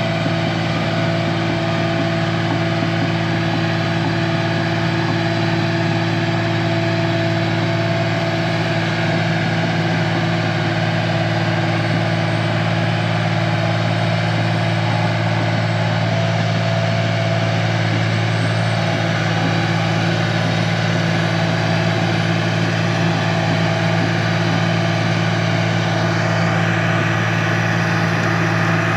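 Heavy-equipment engine running steadily at constant speed, a continuous hum of low tones with no change in pitch.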